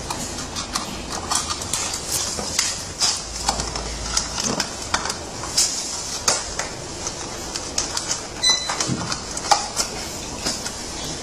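Plastic parts of a kids' ride-on toy truck being handled and fitted: the black plastic roof light bar clicking and knocking against the hard plastic body, many short irregular clicks, with rustling of plastic sheeting.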